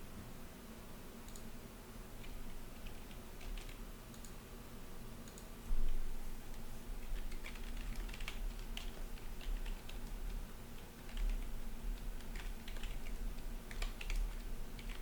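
Typing on a computer keyboard: irregular key clicks, sparse at first and coming thicker from about six seconds in.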